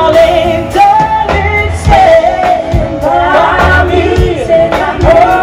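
Live band playing through a stage PA system, a singer holding long, wavering notes over bass and drums.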